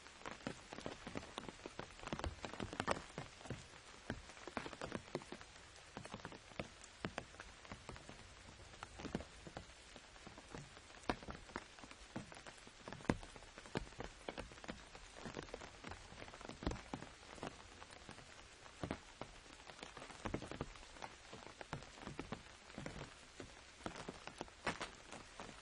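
Rain falling on an umbrella: a steady patter with many irregular, sharper drop taps on the canopy, some louder than the rest.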